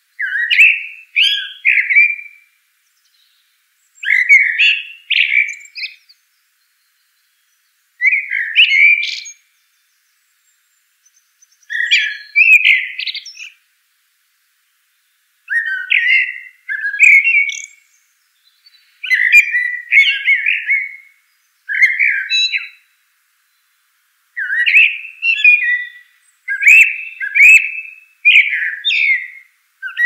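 Northern mockingbird singing: a run of varied, chirpy phrases, each a second or two long, with short silent pauses between them.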